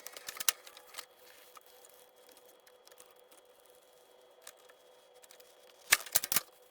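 Light handling of craft sheets: a few soft clicks and rustles in the first second, then mostly quiet with a faint steady hum, and a short burst of sharp crackles and clicks about six seconds in.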